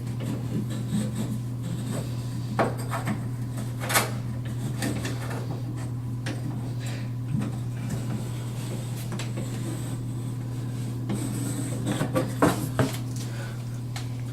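Light knocks, clicks and rubbing from a wooden bathroom vanity cabinet being handled, over a steady low hum; the loudest knocks come about four seconds in and again near the end.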